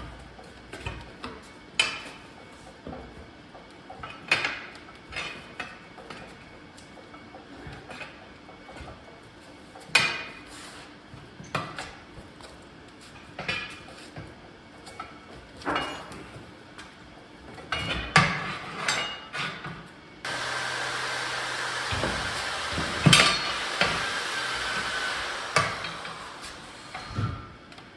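Metal tools and parts clinking and knocking at irregular intervals. About two-thirds of the way through, a steady hiss starts suddenly and runs for several seconds.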